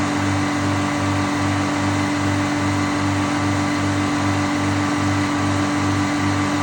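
Sawmill's engine running at a steady speed, with an even low throb pulsing about three times a second.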